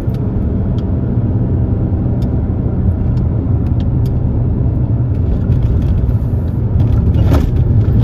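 Alfa Romeo car being driven, heard from inside: a steady low rumble of engine and road noise.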